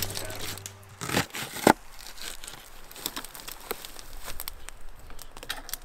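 Aluminium foil crinkling and rustling as diced sweet potato is scraped off a plastic cutting board onto it, with two sharp knocks between one and two seconds in.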